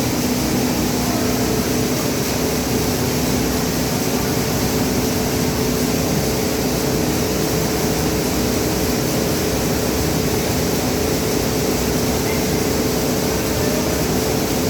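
Paddy grain dryer running steadily: an unbroken machine noise with a constant low hum and an even rushing haze, with no change in speed.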